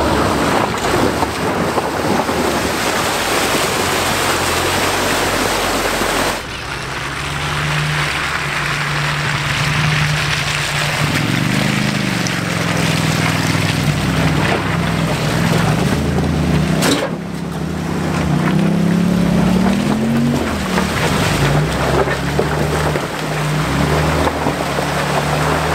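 Vehicle engine running and revving, its pitch rising and falling, under a heavy rush of wind noise on the microphone. The sound changes abruptly about six seconds in and again about seventeen seconds in.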